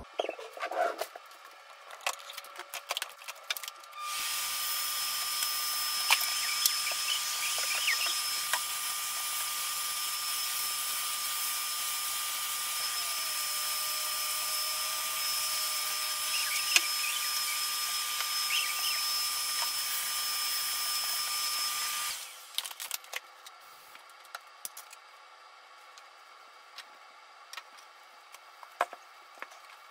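Upright corded vacuum cleaner switched on about four seconds in, running steadily with a high whine, then switched off after about eighteen seconds. Light clicks and knocks of handling before it starts and after it stops.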